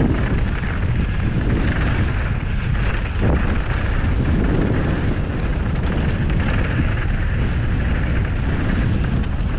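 Steady wind rumble on the microphone of a camera riding a mountain bike as it rolls fast down a dry dirt trail, with the tyres' rolling noise on the dirt underneath.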